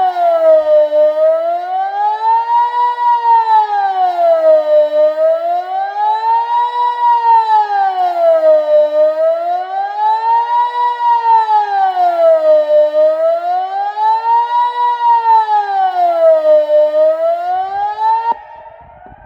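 Delta 8 civil-defence siren sounding the Swiss general alarm: a loud tone that rises and falls smoothly, one full cycle about every four seconds. It cuts off abruptly near the end, as the alarm signal ends.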